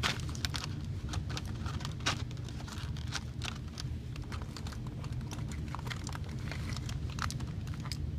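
Aluminum foil crinkling as it is handled, in many small irregular crackles and clicks, over a steady low hum.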